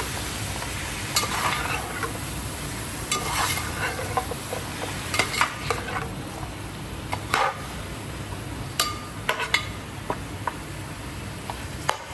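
Food sizzling in hot oil in a cooking pot while a spoon stirs it, clacking and scraping against the pot at irregular intervals.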